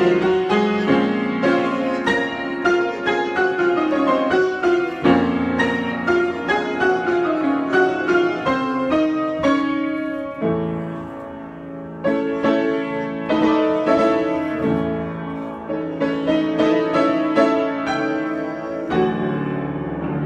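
Solo piano improvisation: a steady flow of notes and chords that eases into a quieter held chord about halfway through, then picks up again.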